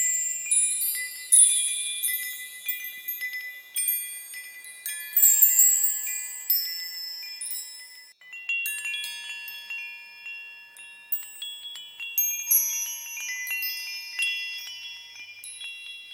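High-pitched bells chiming at random, like wind chimes: many overlapping bright tones that strike suddenly and ring out, with a new cluster every second or two and a brief lull about halfway through.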